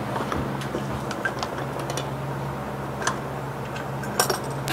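Vertical milling machine running with a steady motor hum, with scattered sharp ticks and clicks over it, a cluster of louder clicks near the end. The motor is switched off at the very end and the hum cuts out.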